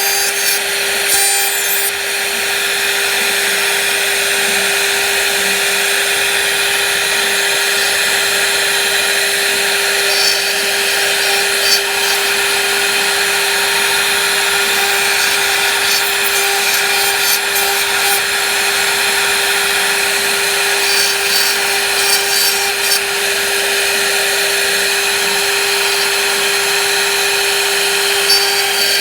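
CNC router spindle cutting wood, running steadily with one constant whine over the sound of the wood being cut.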